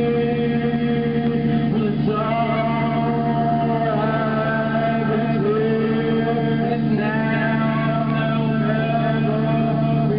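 Music: a singing voice holding long, slowly gliding notes over a steady low drone.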